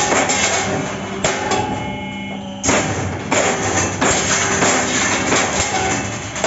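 Loud background music with drums.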